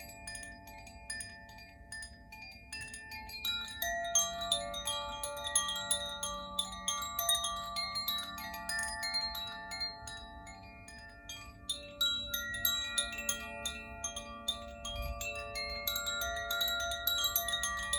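Koshi chime ringing as it is swayed: a clapper strikes its tuned metal rods in irregular clusters, leaving several bell-like tones ringing over one another. The strikes are sparse and soft at first and grow fuller and busier from about four seconds in.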